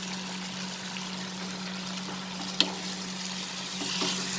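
Spices and oil sizzling in a pan, with one sharp clink of a utensil about two and a half seconds in. The sizzle swells near the end, as fresh pointed gourd slices go into the hot masala. A steady low hum runs underneath.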